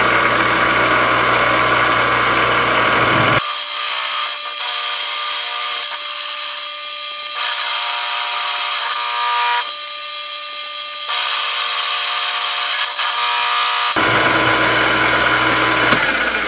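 Milling machine running, its spiral end mill cutting a flat along a steel rebar barrel: a steady, loud whine with several constant tones over the hiss of the cut. The deep hum under it drops out about three seconds in and comes back near the end.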